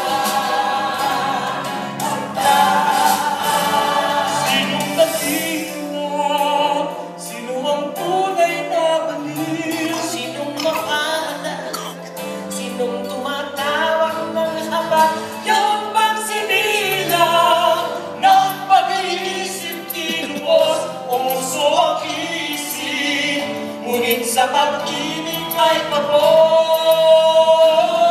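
Mixed choir of men's and women's voices singing a piece in harmony, heard from the audience seats of a theatre.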